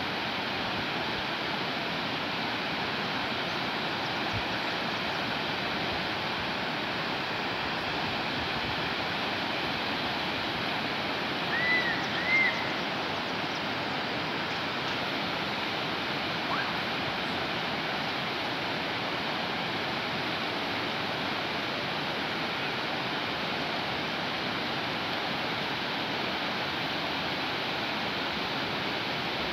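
River water rushing over rocks in shallow rapids, a steady hiss. About twelve seconds in, two short high chirps sound over it.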